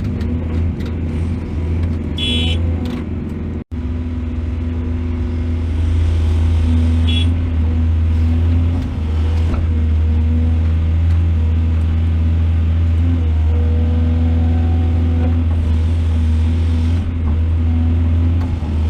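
Excavator's diesel engine running steadily with a deep low hum, with two short higher-pitched sounds over it; the sound drops out for an instant about four seconds in.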